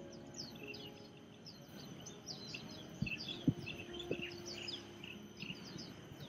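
Birds chirping over and over, short high falling notes several times a second, over a faint steady high whine. A few sharp knocks come about three seconds in.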